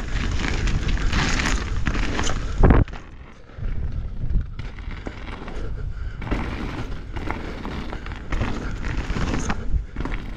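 2023 Norco Fluid mountain bike descending a dirt trail: tyres running over the dirt and wind buffeting the microphone, broken by many short knocks from the bike and trail. One heavy thump comes a little under three seconds in, followed by about half a second that is much quieter.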